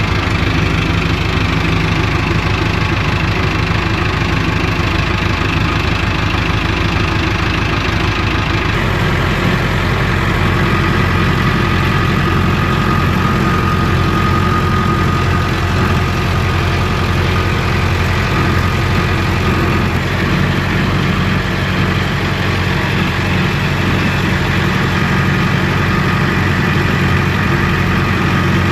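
Tractor engine running steadily, its note changing about nine seconds in.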